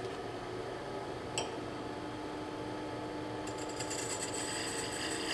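A wood lathe runs with a steady motor hum. A light click comes about a second in. From about halfway, a beading tool cuts into the spinning wood with a high-pitched scraping hiss as a bead with a flat spot is re-cut to true it.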